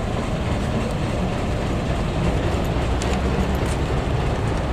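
Bus exhaust running with a steady, deep rumble; its muffler is gutted ('bobokan') to give the loud growling 'ngorok' note.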